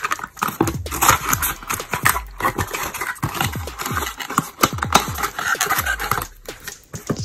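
Close-up handling of a cardboard box and paper insert: dense rustling, scraping and small knocks as a folded paper manual is pushed into the box and the lid flap is folded shut.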